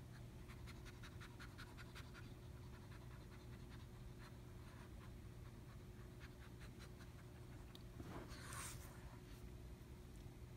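Near silence: room tone with a steady low hum, a run of faint ticks over the first few seconds, and a short breathy rustle a little over eight seconds in.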